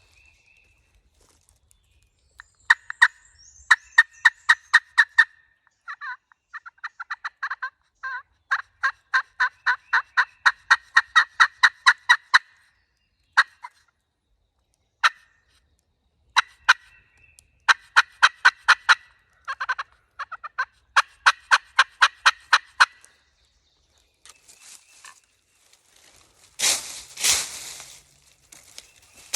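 Turkey call worked by hand, giving strings of short, sharp yelping notes at about five a second, with pauses between the strings. Near the end comes a loud rustle.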